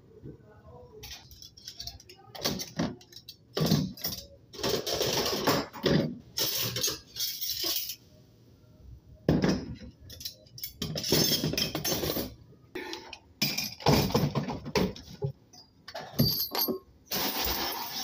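Metal cutlery clattering and clinking in irregular handfuls with short pauses as it is dropped by hand into a dishwasher rack's cutlery basket. Near the end a steady hiss from the hood-type commercial dishwasher sets in.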